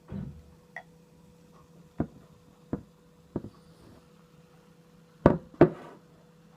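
A series of about seven sharp knocks and clicks of hard objects being handled and set down, spaced irregularly, with the loudest two close together near the end.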